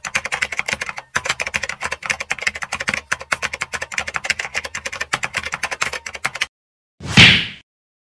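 Typing sound effect, a rapid clatter of key clicks that stops about six and a half seconds in. It is followed by a single loud, half-second burst of noise, like a whoosh, near the end.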